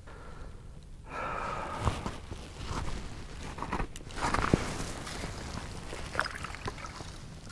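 Handling noise of fishing gear and clothing, with a few sharp knocks and crunching steps of cleated boots on snow-covered ice.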